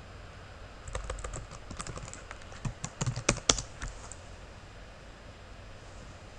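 Computer keyboard typing: a run of keystrokes for about three seconds, with a few louder key presses near the end, then it stops.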